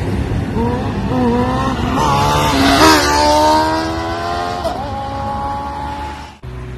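Superbike accelerating hard toward the listener, its engine note climbing and stepping back at each upshift. It flies past about three seconds in with a sharp drop in pitch, then fades as it pulls away. The sound cuts off abruptly shortly before the end.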